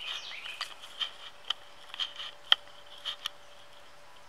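Woodland background: a steady high insect drone with a few short bird chirps, and a scattering of sharp ticks.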